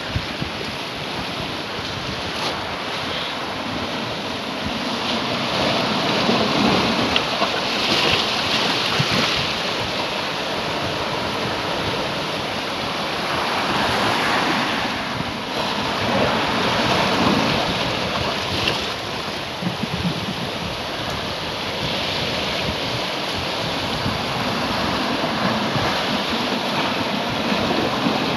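Sea surf breaking and washing over shoreline rocks: a continuous rush of foaming water that swells louder every few seconds as each wave comes in.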